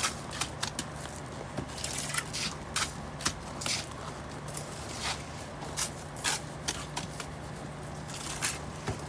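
Steel mason's trowel working wet mortar: scraping it up and spreading and pressing it along the top of a concrete block wall, heard as irregular sharp clicks and short wet scrapes.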